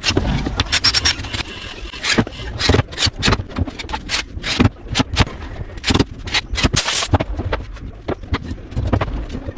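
Woodworking at a bench: a quick, irregular run of sharp knocks, taps and scrapes of tools on wood.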